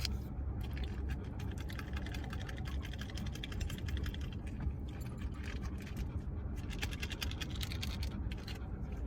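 Close-miked eating noise: a dense, irregular run of crinkles and clicks, as from fast-food paper wrapping and packaging being handled, over a steady low hum.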